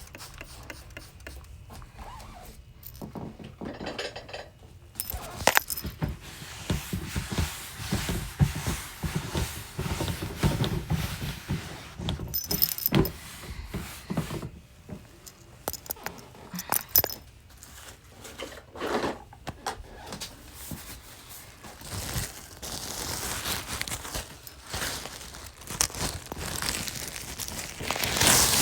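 Irregular clinks, scrapes and knocks of things being handled and moved about, with some jingling.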